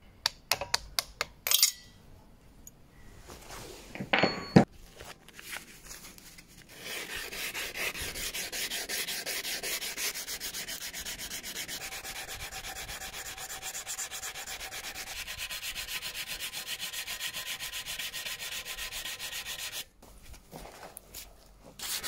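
Hand sanding with sandpaper: quick, even back-and-forth strokes that run steadily for about thirteen seconds and then stop suddenly. Before the sanding there are a few light clicks and one knock.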